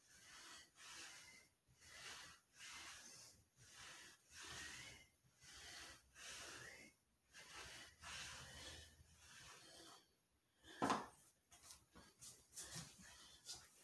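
A man's heavy, rhythmic breathing between ab-wheel rollouts, about one breath a second. A single louder, sudden sound comes about eleven seconds in, followed by a few faint clicks.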